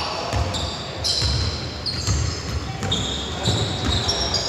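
Basketball game play: a ball thumping on a hardwood court several times with sneakers squeaking sharply on the floor in between.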